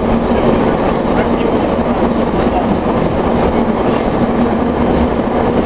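Kyiv Metro train running through a tunnel, heard from inside the car: a loud, steady running noise of wheels on rails and the moving car, without a break.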